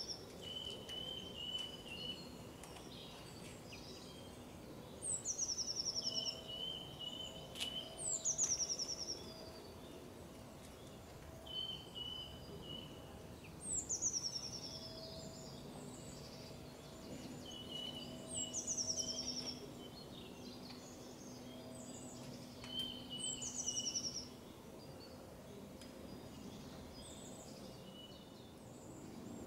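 Small songbirds singing: one repeats a short, high trill that falls quickly in pitch about every five seconds, with lower, level chirping phrases between, over a faint steady hum.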